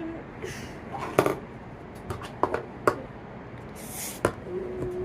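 A few sharp clicks and knocks, scattered and irregular, with a couple of short hisses in between.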